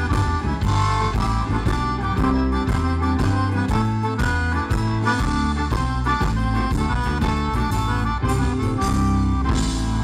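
Live band music with a steady drum beat under sustained melody notes.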